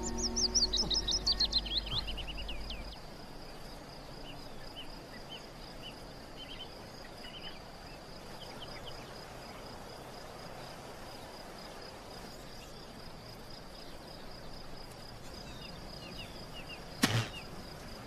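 Countryside ambience. A bird gives a quick run of falling chirps at first, then scattered short bird chirps go on over a steady high insect drone. A single sharp knock comes near the end.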